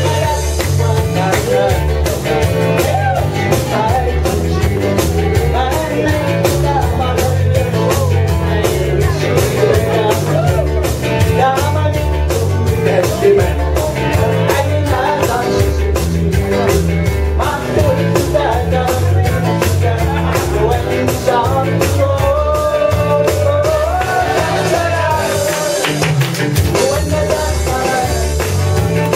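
Live dance music played on an electronic arranger keyboard, with a steady programmed beat and bass line under the melody; a man sings along through a headset microphone.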